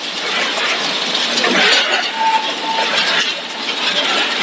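Fried horn chips production line running: steady machinery noise from the fryer's mesh conveyor and transfer conveyors, with light clinking and two short high tones just past halfway.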